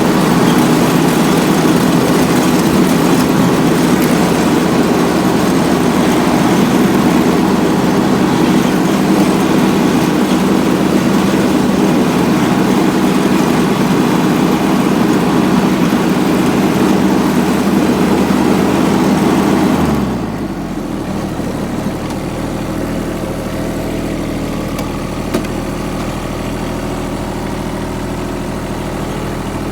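Kubota G1700 ride-on mower's diesel engine running at working speed with a loud hiss. About two-thirds of the way through, the pitch drops quickly and it settles to a steady, quieter idle.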